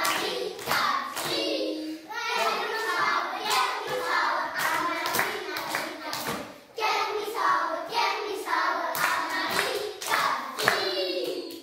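A class of young children singing a Flemish folk song together, with hand claps among the singing.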